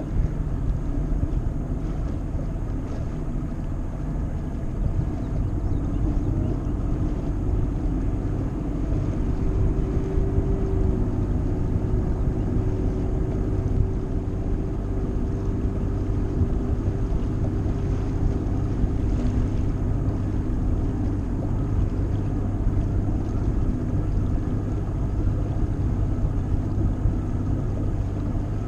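Mercury 150 Pro XS outboard motor running steadily as the bass boat moves slowly over calm water, with light wind noise on the microphone.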